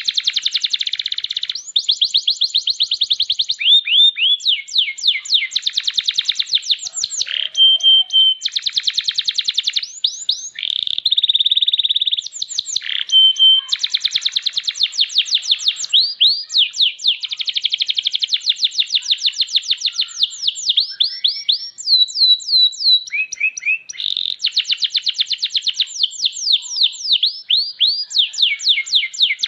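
Domestic canary singing a long, almost unbroken song of rapid trills: phrase after phrase of fast repeated chirps, broken by a few brief held whistled notes.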